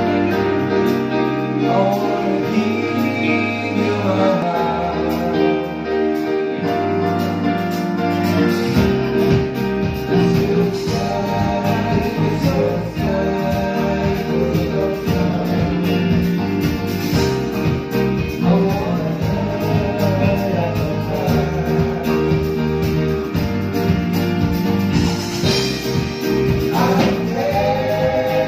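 Live band playing a song through a PA: strummed acoustic guitars, electric guitar and keyboard under a male lead vocal. The low end and a steady beat fill in about nine seconds in.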